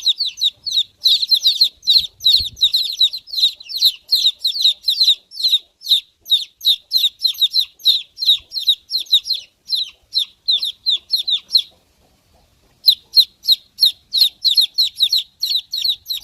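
Baby chicks peeping: a rapid run of high, short, falling peeps, about three or four a second, with a pause of about a second some twelve seconds in.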